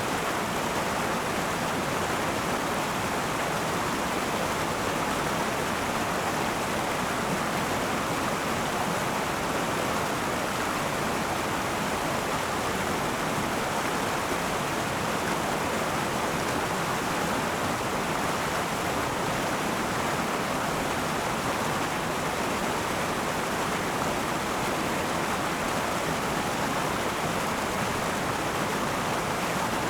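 River water flowing and rushing over stones in a steady, even rush.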